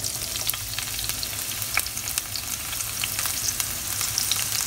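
Diced onion dropped into hot frying oil and melted butter in a frying pan, sizzling steadily with many small crackles.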